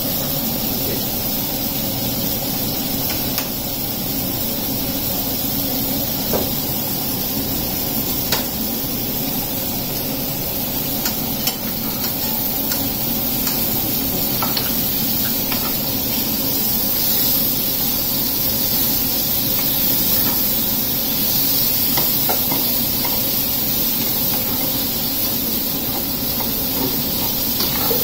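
Vegetables frying in a kadai on a gas stove: a steady sizzling hiss, with a few light clinks and taps of a knife and spoon scattered through it.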